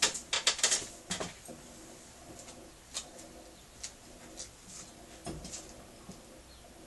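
A quick run of sharp clicks and taps in the first second, then single clicks every half second or so, over a faint steady hum.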